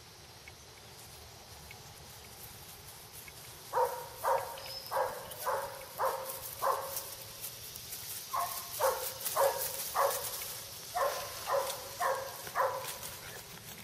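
Short animal calls repeated about two a second, in three runs of five or six, starting about four seconds in.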